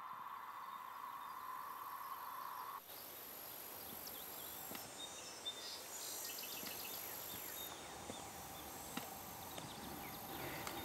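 A steady humming tone for about three seconds that cuts off abruptly, giving way to woodland ambience. In the woods, a high insect drone stops and starts a few times, with scattered bird chirps, and near the end there are footsteps on a stony path.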